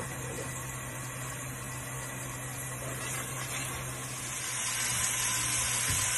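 Hot oil sizzling in a steel pot with green onion, green chilies and crushed mustard seed and garlic, stirred with a silicone spatula; the sizzle gets louder and brighter from about four and a half seconds in. A steady low hum runs under it.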